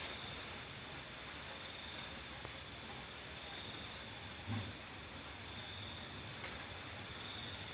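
Night insects, crickets, trilling steadily at a high pitch, with a separate pulsed chirp joining for a couple of seconds in the middle. A soft low thump sounds about four and a half seconds in.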